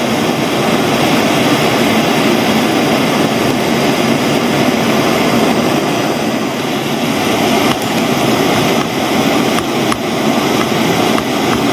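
Handheld gas blowtorch burning with a steady, loud jet hiss. Its flame is heating a model engine's connecting-rod small end to soften (anneal) it.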